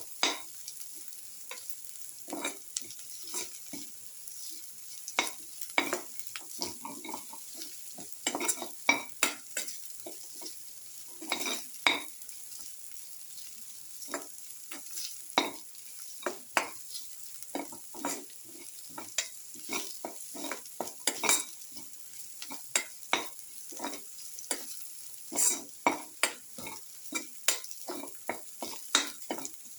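Shallots, garlic and ginger sizzling in hot oil in a pan while a spatula stirs them, with frequent irregular scrapes and knocks of the spatula against the pan.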